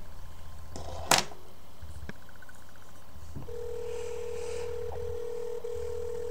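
A loud click about a second in, then a steady single-pitched telephone line tone from the handset's earpiece, starting about halfway through and holding for several seconds while a call is being placed.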